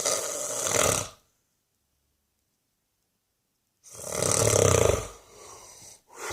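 An old man snoring in his sleep: one snore ends about a second in, then after nearly three seconds of silence comes a long loud snore that trails off into a softer breath, and the next snore starts near the end.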